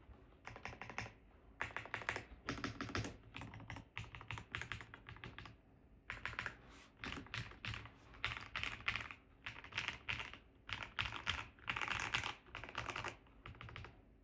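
Typing on a gasket-mounted Epomaker Cypher 96 mechanical keyboard with doubleshot PBT keycaps on a PC plate: quick runs of keystrokes with short pauses between them.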